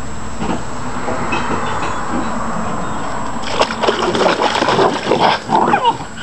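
A steady rushing background noise, then, from about halfway in, irregular splashing and sloshing as a puppy scrambles into a shallow plastic paddling pool of water.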